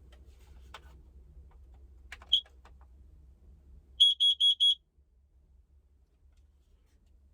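Battery-powered Kidde carbon monoxide alarm beeping. After a few light handling clicks it gives one short, high beep, then about two seconds later a quick run of four loud, high beeps: the four-beep pattern that carbon monoxide alarms sound.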